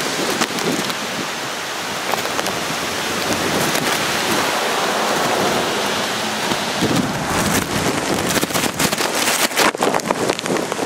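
Steady rain with wind rumbling on the microphone. From about seven seconds in, an uneven run of sharp crackles sits on top: raindrops striking the microphone.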